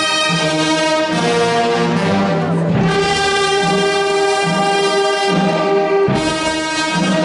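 Wind band of clarinets and brass playing held chords that change slowly, every second or two.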